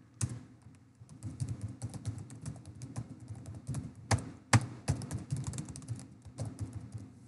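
Typing on a computer keyboard: a quick, uneven run of key clicks, with two louder key strikes about four seconds in.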